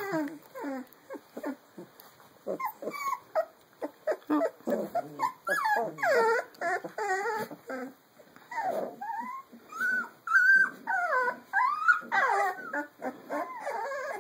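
Several young puppies whimpering and yipping as they play with each other: a busy run of short, high calls that rise and fall in pitch, one after another.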